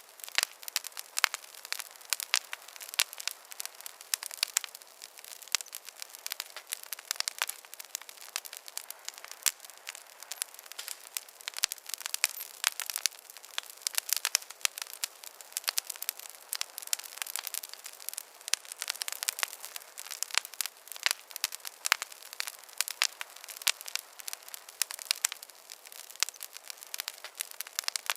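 Campfire crackling: a dense, irregular stream of sharp pops and snaps, with no low rumble of flame.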